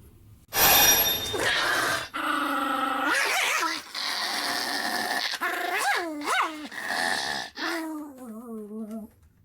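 An animal's vocal cries: a harsh start, then a series of drawn-out calls that rise and fall in pitch, ending in a wavering, trembling call.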